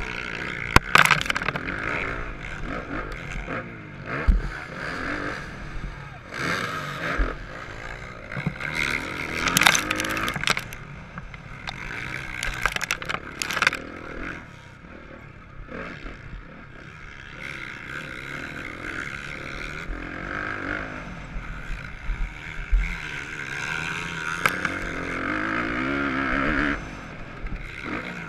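Motocross bike engine revving up and down through the gears as it races a dirt track, heard from an onboard camera, with wind buffeting and several sharp knocks from bumps and landings.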